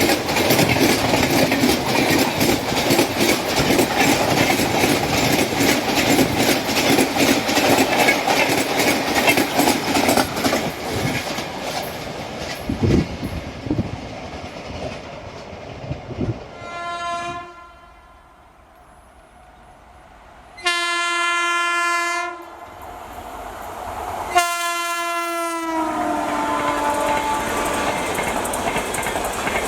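Indian Railways train running past with its wheels clattering rhythmically over the rail joints, the noise fading away. Then its horn sounds three times, a short blast, a longer one and a third whose pitch drops as it trails off.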